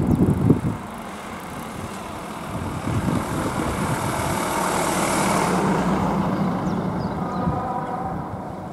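Ford Transit van crossing the railway and driving past close by: its tyre and engine noise swells to a peak about five seconds in, then fades as it moves away, with a steady engine tone while it leaves. In the first half second, a burst of wind on the microphone is the loudest sound.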